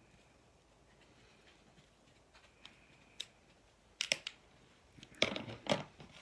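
Small sharp clicks and light scrapes of a small Phillips screwdriver working a screw out of a hard plastic 1980s G.I. Joe action figure, with a few scattered ticks, then a cluster of clicks about four seconds in and a louder one a second later.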